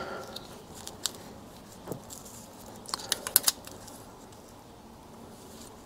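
Faint light clicks of a steel feeler gauge set as its blades are fanned out and sorted by hand, with a quick cluster of clicks about three seconds in.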